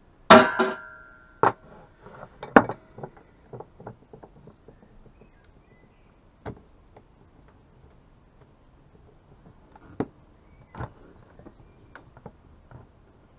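Metal hand tools (a long screwdriver and pliers) clinking and knocking against a two-stroke chainsaw's engine parts while a part is being worked off. A loud metallic clatter that rings briefly comes just after the start, followed by scattered sharp clicks and taps.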